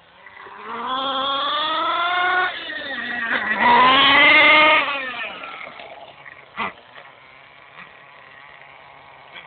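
HPI Bullet 3.0 1/10 nitro monster truck's .18-size nitro engine revving up twice with rising pitch, loudest as the truck passes about four seconds in, then fading as it drives away. A single short knock comes just before seven seconds.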